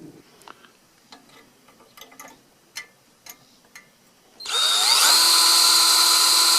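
A few light clicks and handling sounds, then, about four and a half seconds in, a small electric power tool's motor spins up with a rising whine and runs loud and steady.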